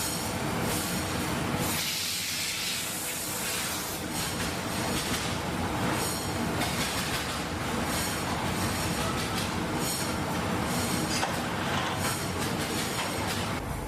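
Steady factory machinery noise with clicks and faint high tones, and a louder hiss from about two to four seconds in.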